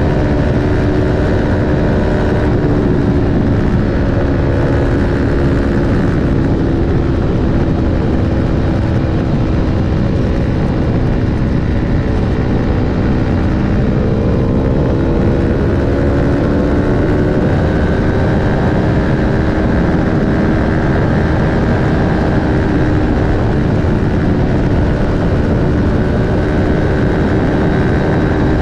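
Aprilia Tuono 1100 RR's V4 engine with an Akrapovic slip-on exhaust, running steadily at highway speed under heavy wind rush. The engine note sags slightly about halfway through, then climbs back up.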